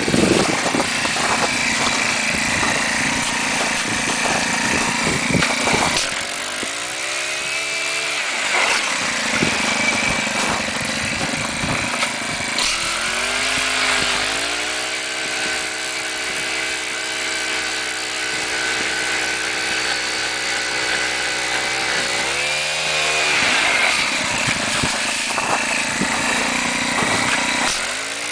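Small gas engine, likely a gas ice auger's, running for the whole stretch and revving up and down several times, with rough, noisy running in between.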